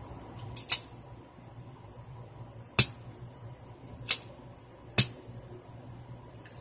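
Four sharp plastic clicks and snaps from the mechanism of a Nerf Micro Shots Fire Strike, a small pull-back blaster, as it is worked by hand, with a couple of faint clicks near the end.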